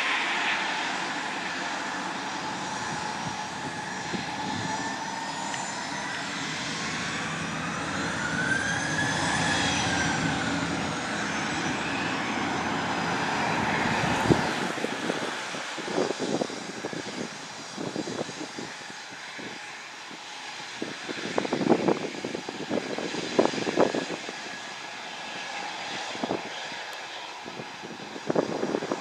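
Bombardier CRJ-200 regional jet taxiing at low thrust, its two rear-mounted turbofans making a steady jet whine. About a third of the way in the whine swells and rises, then falls in pitch as the jet passes. In the second half irregular thumps break in, the loudest around two-thirds of the way through.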